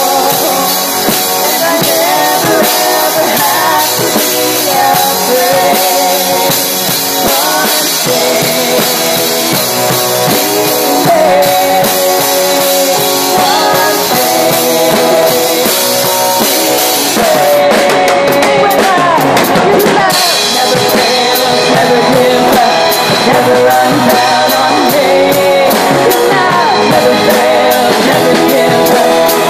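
A live worship band plays a song with singing, the drum kit heard loud and close. The drum and cymbal strokes grow denser about two-thirds of the way through.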